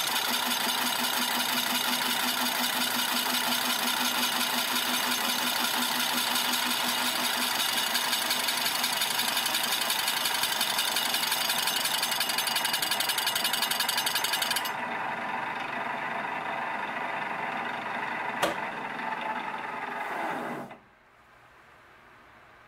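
Lathe running with a 110 mm carbide-tipped saw blade cutting into a metal workpiece, a dense high-pitched cutting noise. About fifteen seconds in the cutting noise stops and the machine runs on alone. There is a sharp click, then the lathe is switched off and winds down with a falling pitch.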